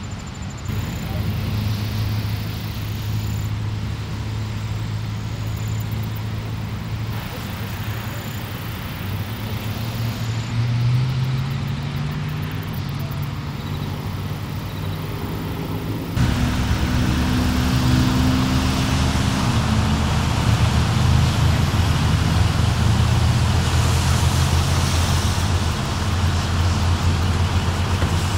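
Steady hum of motor-vehicle engines and road traffic, with a low drone under it. About sixteen seconds in, the sound jumps abruptly louder and noisier.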